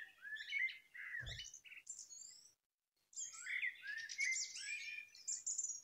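Songbird chirping and singing in quick runs of short, gliding high notes, with a brief pause about two and a half seconds in.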